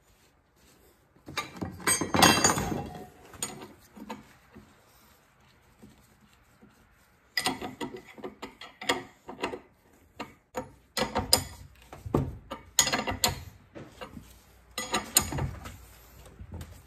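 Hands working on a hydraulic cylinder rod on a workbench. A rag rubs over the metal, then come irregular clusters of short metal clinks and knocks as tools and parts are handled.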